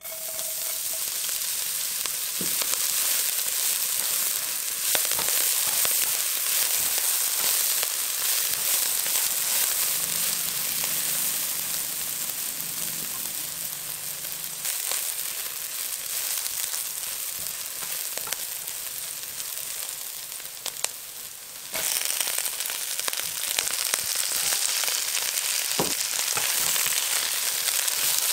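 Minced garlic, red chilli and scallion whites sizzling and crackling in hot oil in a wok. A little over 20 seconds in, the sizzle suddenly grows louder, and near the end Chinese cabbage is being stirred through the oil with a spatula.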